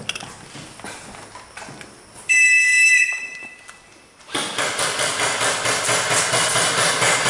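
A referee's whistle blows one short blast about two seconds in, the signal that the airsoft round starts. After it comes a loud rushing, rustling noise that lasts to the end.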